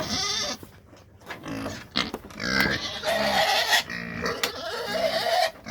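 Pigs grunting repeatedly while they eat at the feed, with a few louder, higher-pitched squeals mixed in.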